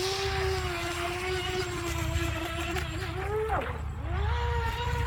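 Brushless electric motor of an Atomik Barbwire RC racing boat whining at speed, its pitch holding steady, then creeping up. About three and a half seconds in the whine drops away briefly as the throttle eases, then comes back at a higher pitch.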